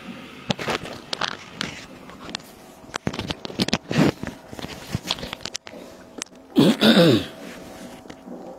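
Handling noise from a handheld microphone as it is held and fiddled with: scattered clicks, knocks and rubbing. About six and a half seconds in comes a louder, brief sound with a falling pitch.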